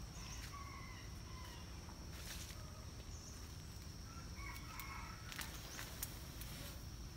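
A rooster crowing faintly twice, once about half a second in and again around four and a half seconds in, over a steady high insect drone.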